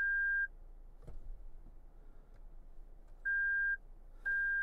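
2023 Toyota Sequoia's cabin warning chime: three short, high beeps, one at the start and two close together near the end, signalling that the rear locker cannot be engaged in two-wheel drive. A faint click about a second in.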